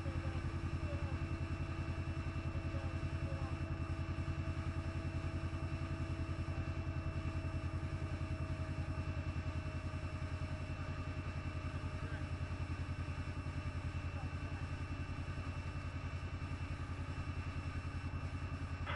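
A vehicle engine idling with a steady, even beat.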